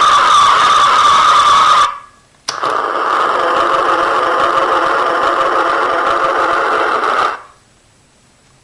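Electronic sound effects from a Playmates Star Trek Runabout toy's small built-in speaker, set off by pressing its buttons. One effect cuts off about two seconds in. A moment later a button click starts a second steady effect, which stops about seven seconds in.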